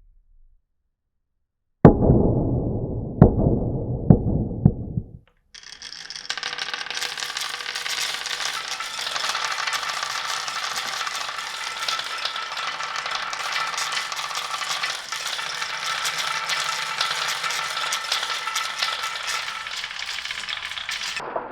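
Glass marbles running through a wooden marble run. From about two seconds in there are some three seconds of low rolling rumble with a few sharp knocks. Then, after a short break, a dense clatter of many marbles clicking and clinking together runs for about fifteen seconds and stops shortly before the end.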